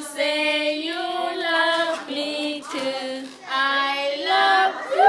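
A woman and young children singing a nursery song together, holding long notes.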